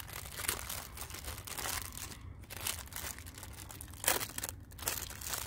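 Plastic food packaging crinkling and rustling in irregular bursts as it is handled, with a steady low rumble underneath.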